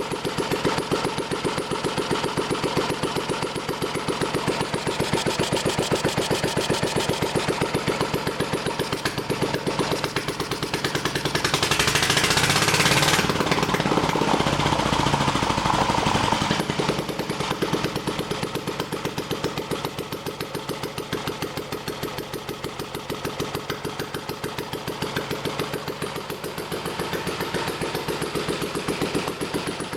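UZMD L3/2 small stationary engine running steadily with a rapid even firing beat after an overhaul. About twelve seconds in a brief hissing rush comes over it and the engine runs louder for a few seconds before settling back.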